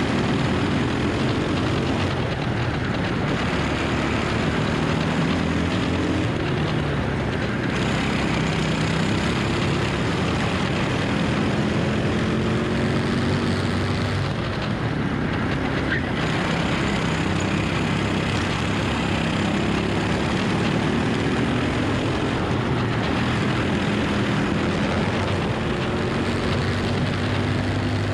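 Racing kart engine (MS Prokart endurance kart) at full racing speed, its pitch climbing on each straight and dropping back into the corners several times over. A constant rush of wind and road noise lies over it.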